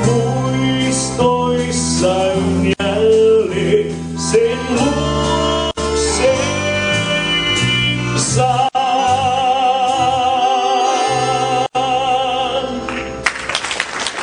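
Live dance band of electric bass, drums, keyboard and accordion playing a Finnish song, with a clarinet taking the lead melody. The tune closes on a long held clarinet note with vibrato, and applause breaks out near the end.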